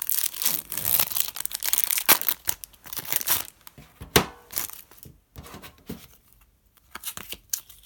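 Foil wrapper of a trading-card pack being torn open, tearing and crinkling for the first few seconds. Then quieter handling of the cards, with one sharp tick about four seconds in.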